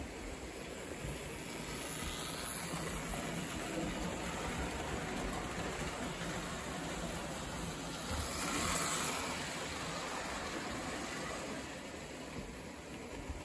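Lionel O-gauge toy train running past on tubular three-rail track: a steady rumble of wheels and motor that builds after a couple of seconds, is loudest about eight to nine seconds in, and eases off near the end.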